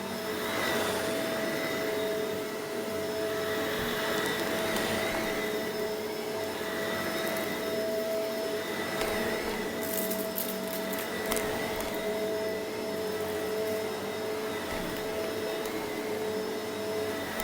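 Shark vacuum cleaner running steadily with a constant whine as it picks up dusty debris, with a brief burst of crackling from grit being sucked up about ten seconds in.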